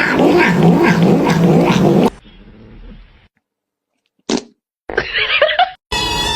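A loud, dense sound cuts off about two seconds in. Then comes a domestic cat's short, wavering call about five seconds in. Near the end a drawn-out, steady cat yowl begins.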